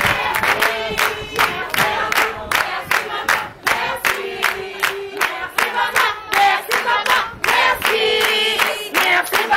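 A group of voices singing together over steady, rhythmic hand clapping.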